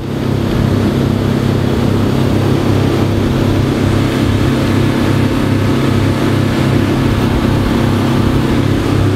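Volvo Penta marine engine running steadily under way: a constant low drone with a hiss of noise over it.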